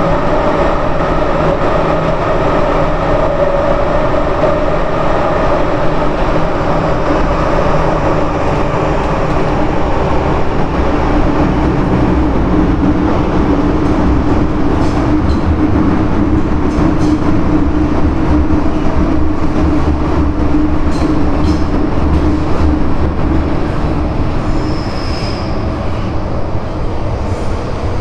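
MTR M-train electric multiple unit running at speed, heard from inside the car: a continuous rumble of wheels on rail under a steady hum. A few sharp clicks come in the second half, and a brief high squeal sounds near the end.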